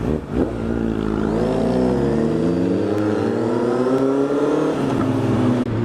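Honda CB650F inline-four motorcycle engine accelerating under the rider. Its revs climb steadily for about three and a half seconds, then drop with a gear change near the end.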